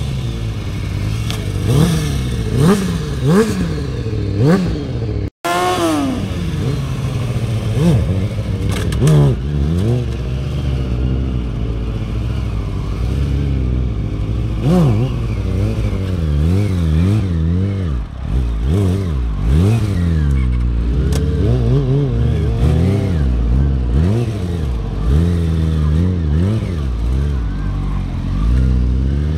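Sport-motorcycle engines revving up and down over and over as the riders work the throttle through wheelies, with several engine pitches overlapping. There is a brief dropout about five seconds in.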